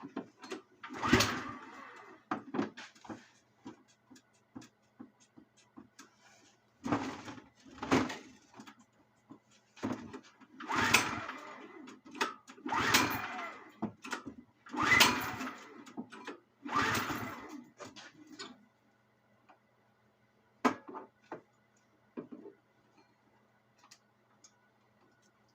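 Snow blower's recoil pull-start rope yanked again and again, about eight pulls one to two seconds apart, with the engine not catching. A couple of fainter knocks follow near the end.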